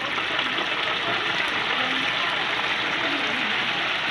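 Chicken deep-frying in a basket of hot oil: a steady crackling sizzle of bubbling oil.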